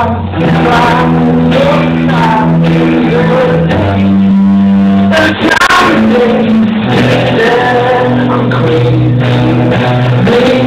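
Rock band playing live: electric guitar, bass guitar and drum kit, with a man singing over them.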